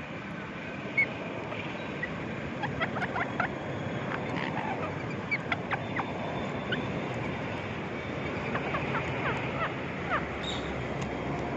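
Parrot chirping in short, quick calls that come in clusters, over a steady background noise.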